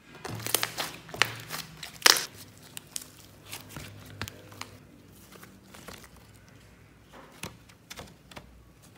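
Slime being pressed and poked by hand, giving sticky crackles and pops. They come thick and fast over the first couple of seconds, loudest about two seconds in, then thin out to scattered pops.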